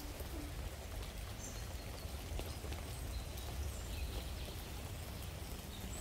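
Light rain falling, with a few faint short bird chirps over a low rumble.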